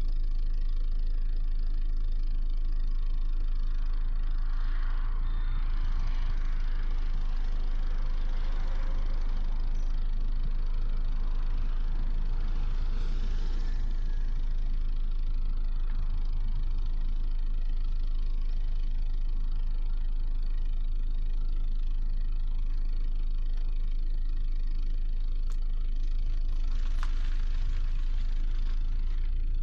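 2018 Audi A5 running, a steady low rumble throughout, with a busier stretch of engine and road noise about four to fourteen seconds in.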